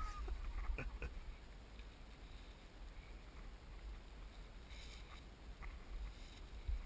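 Wind rumbling on the microphone, with a couple of brief papery rustles from the sky lantern being held about a second in and again near five seconds.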